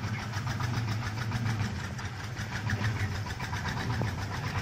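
An engine running steadily at idle, with a low hum and a fast, regular knocking beat.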